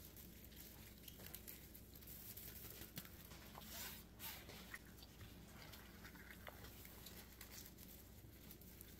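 Faint knife work on a poblano chili: soft scattered clicks and scrapes as the pepper is cut open and its seeds are taken out.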